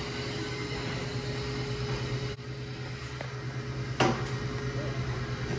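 Steady low hum of a store's indoor background, with a single sharp knock about four seconds in.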